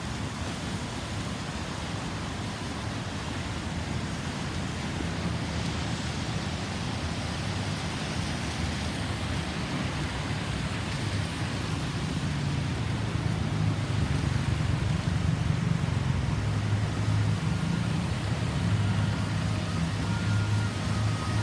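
Road traffic noise: a steady rumble of vehicle engines and tyres, growing louder in the second half. No siren is heard.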